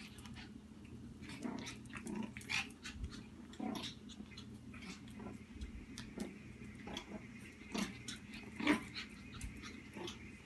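A Shih Tzu playing rough with a plush toy: short bursts of play growling among quick clicks and scrabbles of claws on a tile floor. The loudest bursts come about two and a half seconds in and near the end.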